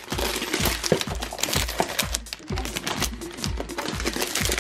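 Background music with a steady bass beat, over the crinkling and rustling of plastic wrap as wrapped sheets of material are handled.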